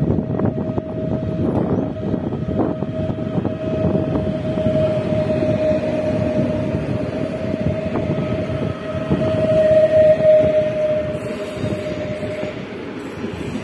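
PKP Intercity electric multiple-unit train pulling away from the platform: a steady whine over the rumble and clatter of the passing carriages, the whine loudest about ten seconds in and stopping near the end.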